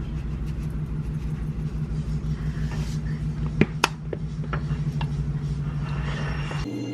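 Light taps of a wooden spoon in a ceramic bowl as a dressing is mixed, with two sharper knocks about three and a half seconds in, over a steady low machine hum that changes abruptly near the end.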